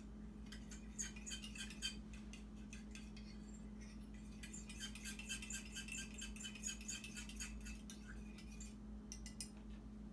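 Spoon clinking quickly and repeatedly against a small bowl as cornstarch and cold water are stirred into a slurry, with a couple of brief pauses in the stirring.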